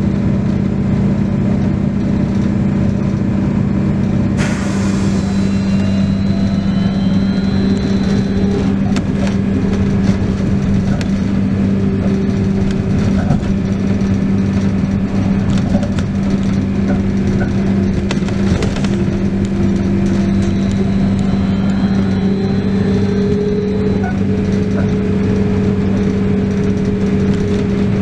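Trolleybus on the move: a steady electric hum and a motor whine that rises and falls in pitch with speed, over road and tyre noise. There is a sharp knock about four seconds in and another near the twenty-second mark.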